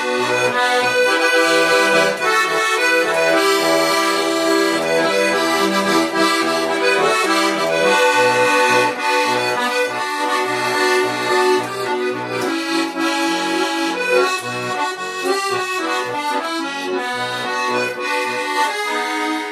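Bayan (Russian button accordion) playing an instrumental interlude: a melody over an evenly pulsing bass-and-chord accompaniment.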